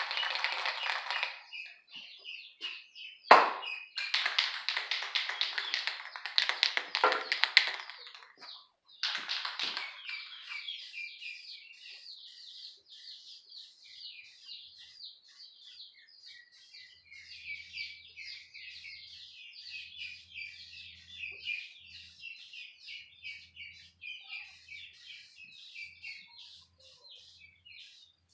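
Aerosol spray can of primer being shaken hard, its mixing ball rattling rapidly, with a sharp clack a few seconds in. After about ten seconds the rattling stops and a fainter, continuous twittering of birds takes over.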